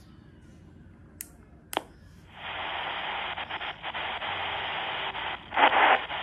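Two sharp clicks, then an XHDATA D-220 portable radio's own speaker comes up about two seconds in with a steady hiss of static on the medium-wave band, crackling and swelling louder near the end.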